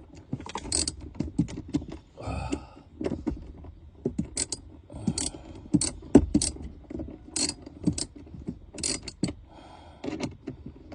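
Irregular metallic clicks, clinks and knocks of hand tools and screws as a car's air-conditioning blower fan is screwed back into place.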